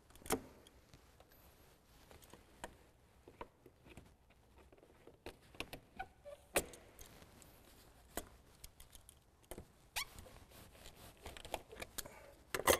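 Scattered light metal clicks and knocks of pliers working spring hose clamps and rubber hoses off around a car's throttle body, with a sharper click just before the end. The aged, hardened rubber hoses are stuck and slow to come free.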